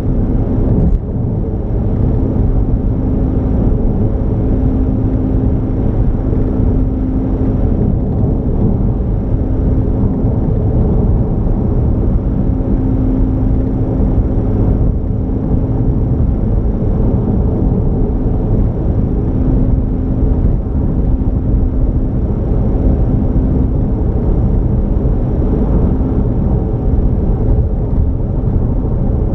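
A car being driven at a steady pace: an even low rumble of engine and road noise, with a faint hum that fades in and out.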